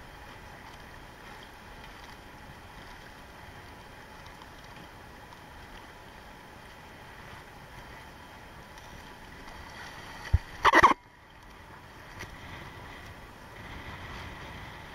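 Steady wind and choppy open-ocean water noise on the microphone of a camera on a swim escort boat, with a faint steady tone underneath. About ten seconds in there is a sharp knock, then a brief loud burst of noise that cuts off suddenly.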